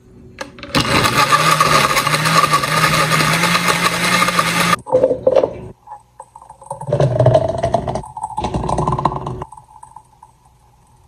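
Oster blender motor running for about four seconds, blending a milkshake, then cutting off suddenly. Then the thick milkshake is poured from the blender jar into a plastic cup, with a faint rising tone as the cup fills.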